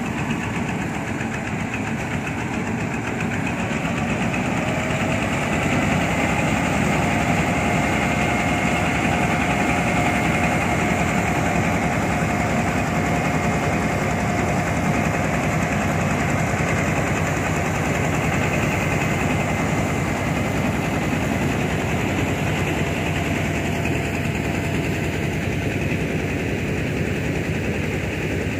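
Engine of a mobile rice mill running steadily while it mills, with a whine from the machine coming in about five seconds in and fading near the end.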